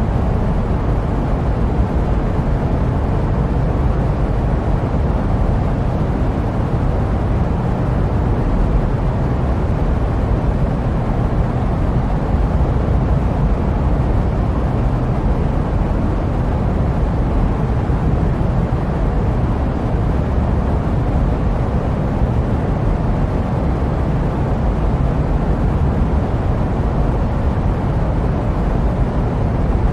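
Steady, unchanging jet airliner noise: a deep, even rumble with a softer hiss above it.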